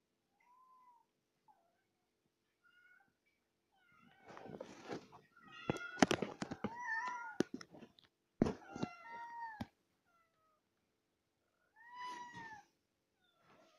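Cats meowing: a few faint meows at first, then a run of loud, repeated meows with a few sharp knocks mixed in from about four seconds in, and one more clear, long meow near the end.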